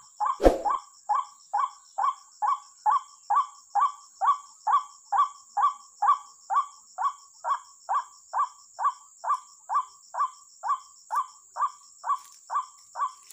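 White-breasted waterhen's call, a croaking 'kwak' repeated evenly about two and a half times a second, played on a loop as a trapping lure. A single sharp thump comes about half a second in.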